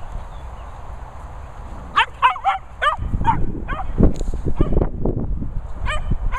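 Dog yapping excitedly while playing: a quick run of short, high-pitched barks that starts about two seconds in, over a low rumble.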